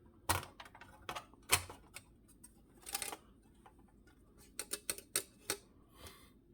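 Irregular sharp clicks and light knocks of PS5 Slim parts and tools being handled during disassembly. There are a few spaced knocks in the first two seconds, a short scraping rustle about three seconds in, and a quick run of clicks around five seconds in.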